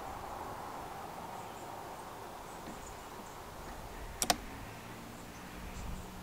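A sharp double click about four seconds in as the toggle switch on a 50A PWM trolling-motor controller box is flipped, over a faint steady hum.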